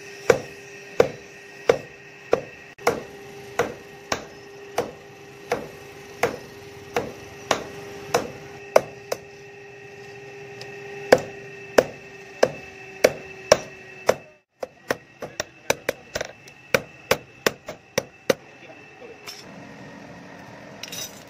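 Hand hammer striking red-hot steel on a steel anvil, forging an old file into a sickle blade. The blows are steady, about one to one and a half a second, each leaving a ringing metallic note. After a short pause a quicker run of lighter blows follows, then they stop near the end.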